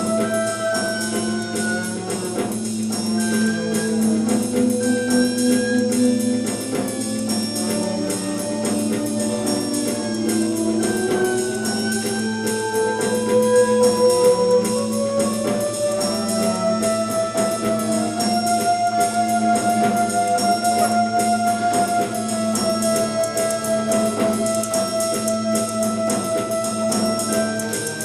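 Instrumental music: long held tones and slowly gliding melodic lines over a steady low drone, with a fast, dense pulse underneath.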